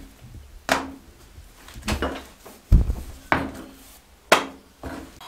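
Wooden rolling pin rolling and knocking on a bamboo cutting board as pita dough is rolled out and turned. There are about six sharp wooden knocks, the loudest a deep thump a little past the middle.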